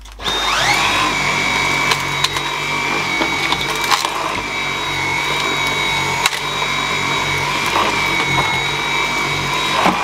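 Dyson V7 Motorhead cordless stick vacuum switched on: the motor spins up with a rising whine, then runs at a steady high-pitched whine as the motorhead floor tool is pushed over carpet. Scattered sharp clicks and rattles come from small debris being sucked up. It is running properly on a replacement battery.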